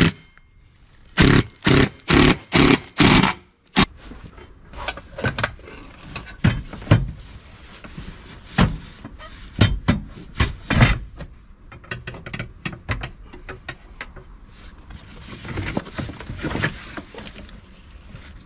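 An 18-volt cordless drill runs in four short bursts, driving bolts into a UTV seat base. It is followed by scattered clicks, knocks and scrapes as the seat is pushed and slid back on its mount.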